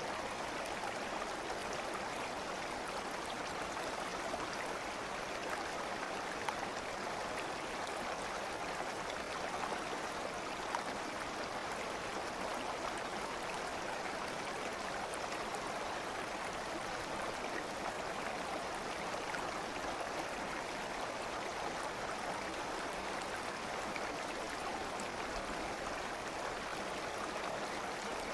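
Steady rushing and burbling of a flowing stream, an even, unbroken water sound.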